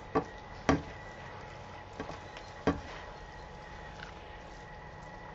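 Black spatulas knocking against a frying pan while stirring and tossing spinach and rice: four short knocks, two close together near the start and two more around two to three seconds in.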